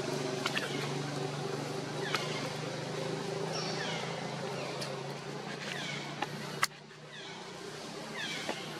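Outdoor background sound: a steady low hum with many short, high, falling chirps over it and a few sharp clicks. The hum drops away abruptly about two-thirds of the way through.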